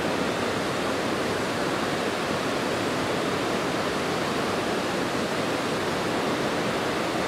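Swollen mountain stream in flood, rushing water making a steady, unbroken noise.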